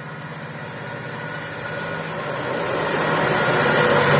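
Diesel freight locomotive approaching, its engine hum growing steadily louder.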